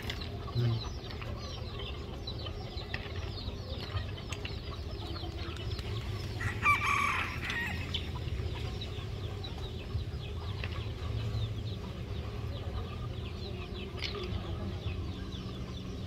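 A flock of chickens clucking and calling throughout, with a rooster crowing once, loudest, about six and a half seconds in.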